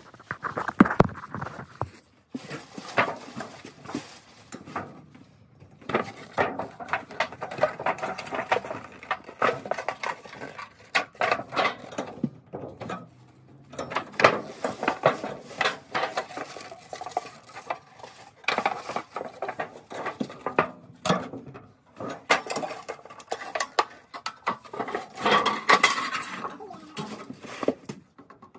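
Thin sheet-metal floor vent boot being handled and its tabs bent by hand: repeated metallic clattering and crinkling, with short pauses.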